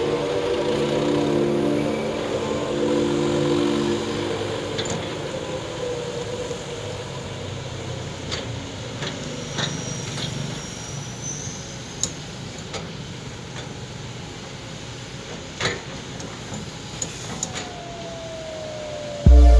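Heavy diesel engine of an excavator and dump truck running steadily, fading over the first several seconds. It gives way to quieter background noise with a few scattered knocks. Music starts just at the end.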